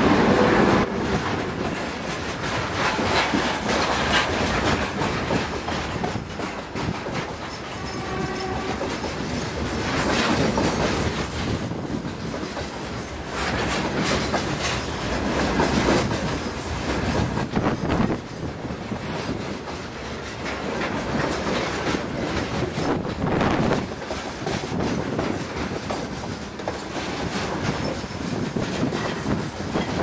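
A freight train of covered hopper wagons rolls past close by. Its wheels clack over the rail joints, the rattle swelling and easing as each wagon goes by. The locomotive is still passing in the first second or so.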